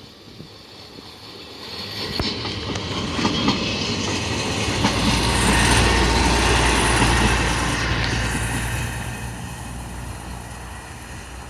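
A train passing close by: a deep rumble and rushing noise that builds over the first few seconds, is loudest in the middle, then fades away, with a few sharp clicks from the wheels on the rails as it nears.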